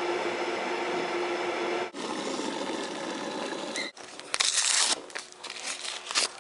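Kitchen sounds of soup and tea being prepared, in three short cut-together clips: a steady rush of noise, then crinkling and tearing, with a sharp crackle about four and a half seconds in.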